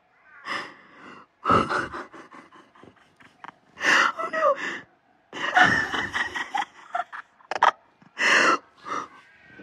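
A person gasping in about six short, loud bursts, some with a brief sound of the voice.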